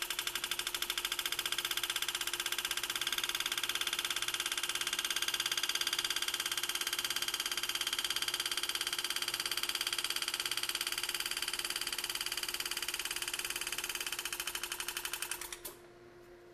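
Pneumatic Enset engraving handpiece hammering a graver in a fast, even buzz as it cuts a bright line into the metal plate; it cuts off abruptly shortly before the end.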